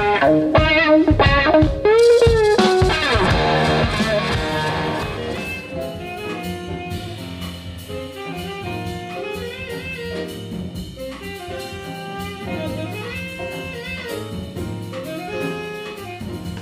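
Instrumental background music: loud, pitch-bending lead lines and a crash about two seconds in, then from about six seconds a quieter passage of melodic lines over a steady low bass line.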